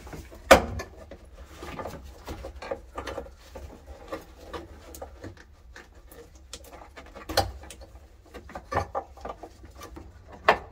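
Rustling and scattered knocks and clicks as an engine wiring harness is worked free and pulled out of a car, with sharper knocks about half a second in, around seven seconds in and near the end.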